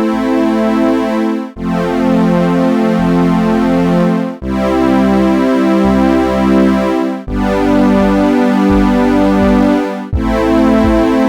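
Background music: synthesizer and electric-piano chords repeating in an even pattern, with a bass line below and short breaks about every three seconds.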